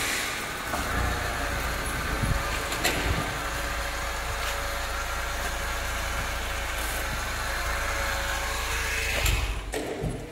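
Small engine of a mini crawler tiller running steadily, with a few light clanks. The sound drops away just before the end.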